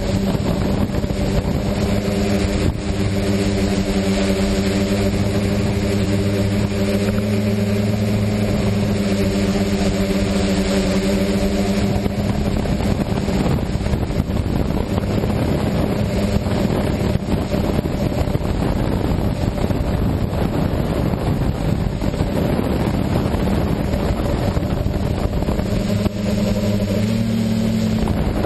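Quadcopter's electric motors and propellers droning steadily, heard from a camera mounted on the airframe. Rushing wind noise on the microphone covers most of the hum, which comes through clearer again near the end.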